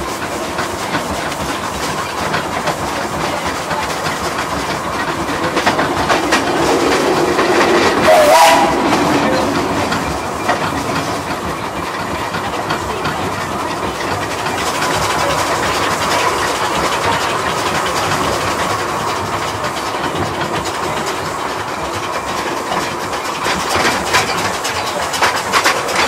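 Small narrow-gauge steam locomotive running along the line, with steady rolling and rail clatter and a brief louder sound about eight seconds in.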